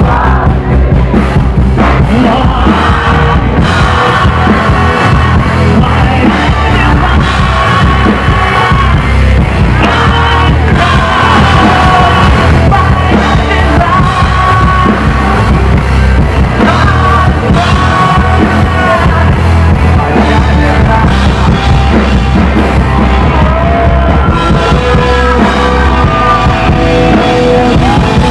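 A rock band playing live, with a male lead singer singing over bass guitar and drums.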